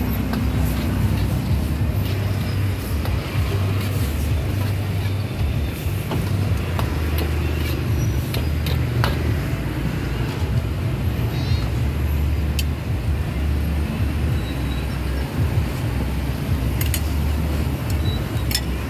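Street traffic noise: a steady low engine rumble from vehicles running and passing close by, with scattered short clicks and knocks.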